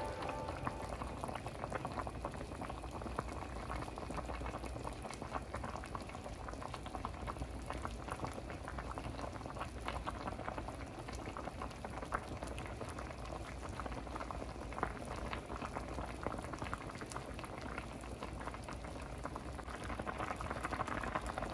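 Food boiling in a cooking pot, a steady bubbling with many small pops. The food is now cooked through.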